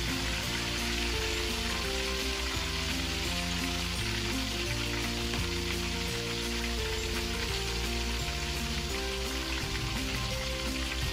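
Two whole chickens deep-frying in hot oil in a wok: a steady, dense sizzle of bubbling oil. Soft background music with held notes plays underneath.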